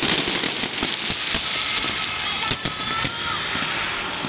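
Fireworks display going off close by: a dense, continuous string of rapid bangs and crackling.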